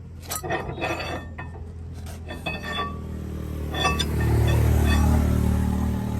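Metal tools or parts clinking a few times over a vehicle engine running steadily, with the engine growing louder about four seconds in.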